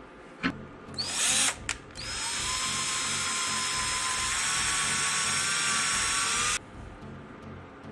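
A click, then a power drill: a short spin-up about a second in, then a steady run of about four and a half seconds into the wooden hanger block that cuts off suddenly.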